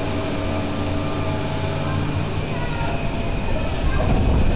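Demolition excavator running steadily at work, a low engine hum with a few short higher whines; the low rumble grows louder near the end as the digger's arm comes up.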